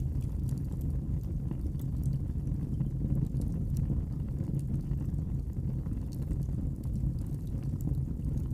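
Wood fire burning in a fireplace: a steady low rumble of flames with many faint, scattered crackles and pops.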